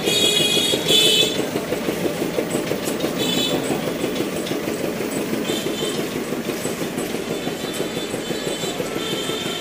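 Steady, loud din of a busy street beside a fruit stall, a dense rumble of traffic and crowd noise with a rapid, irregular rattle, and brief high-pitched tones (horns or squeals) every couple of seconds.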